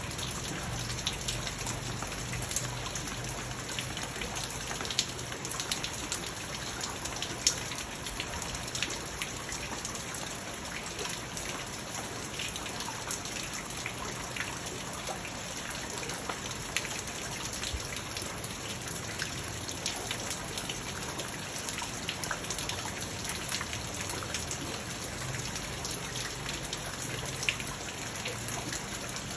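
Rain falling on a garden pond and its rocks: a steady hiss of water with many sharp drop ticks and a few louder ones, mixed with water splashing in the middle of the pond.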